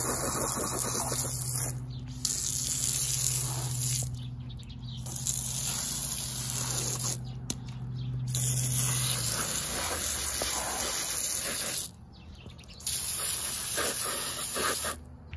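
Garden hose nozzle spraying a jet of water onto riding boots to wash the mud off, in about five spurts of a few seconds each that start and cut off sharply.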